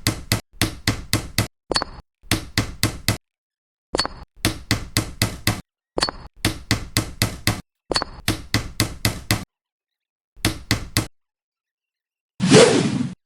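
Light, sharp knocks like small hammer taps, in quick runs of about five a second, each run breaking off into silence before the next. Near the end comes a brief, louder burst of rushing noise.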